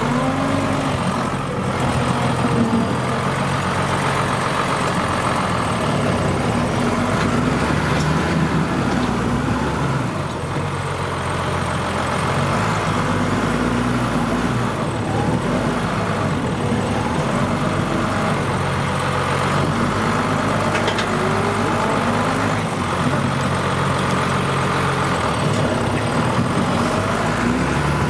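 New Holland TM150 tractor's diesel engine running steadily while it pushes snow with a front-mounted plough, heard from inside the cab.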